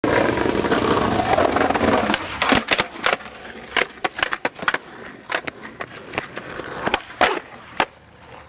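Skateboard wheels rolling over concrete for about two seconds, then a run of sharp clacks and knocks as the board's tail snaps and the board hits the ground.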